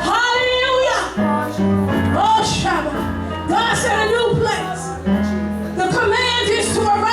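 Music with a woman singing, her phrases bending in pitch over sustained low instrumental notes.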